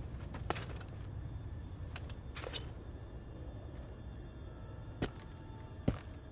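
Film soundtrack of a tense standoff: a low steady background rumble with about five short sharp clicks and scuffs of boots stepping on dry dirt, the loudest near the end.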